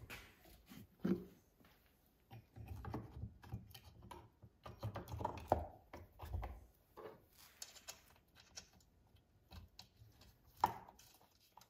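Light, irregular clicks, taps and scrapes of a chainsaw's bar, chain and side cover being fitted by hand, with a few dull knocks in the middle and one sharper click near the end.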